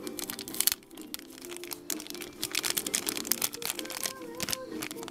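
Plastic wrapping crinkling and crackling in irregular bursts as small toy pieces are handled and unwrapped, over soft background music.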